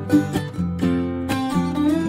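Background music: a light tune on a plucked-string instrument, with notes picked in a steady rhythm.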